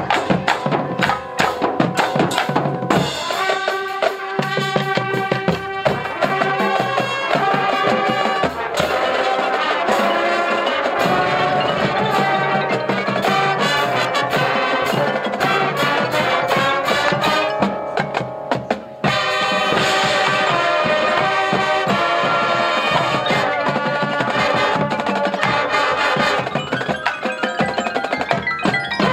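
High school marching band playing: drumline strokes, then sustained brass chords over the drums, with a brief drop-out a little past the middle before the full band comes back in.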